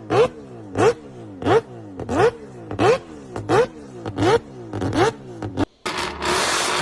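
Car engine revved in sharp blips, about one every 0.7 seconds, each rising quickly in pitch and falling back more slowly. Just before the end it breaks off and gives way to a loud, steady rushing roar.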